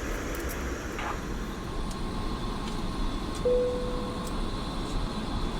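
Steady rumble and hiss of an Airbus A330-300's cabin in flight, with a short steady tone a little past halfway.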